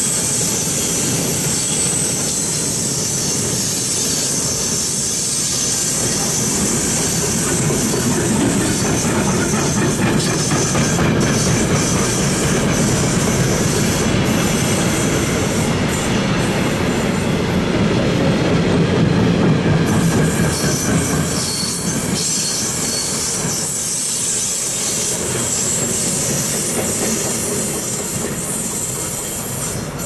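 Freight wagons of a long mixed freight train rolling past close by: a steady rumble of wheels on rail with a thin high-pitched wheel squeal over it. The sound eases off slightly near the end as the last wagon passes.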